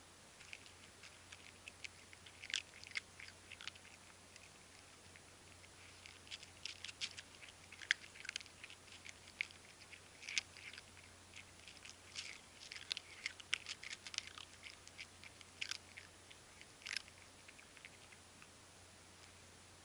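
Stray cats chewing their food: quiet, irregular clicking and crunching bites in quick clusters, falling silent near the end.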